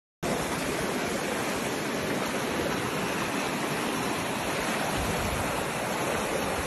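Fast, shallow mountain river flowing over rocks in white-water rapids: a steady, even rushing of water that starts abruptly a moment in.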